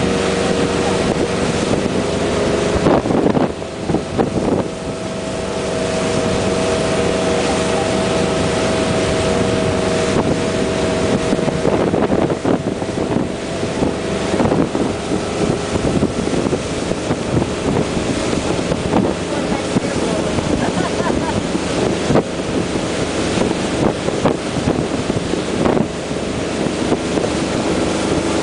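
Tow boat's engine running steadily at speed, with the wake rushing behind and wind gusting across the microphone.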